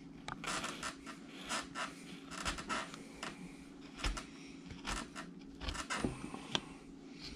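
V tool cutting by hand into a wooden carving: a run of short scraping strokes as the blade is pushed through the wood, paring off chips.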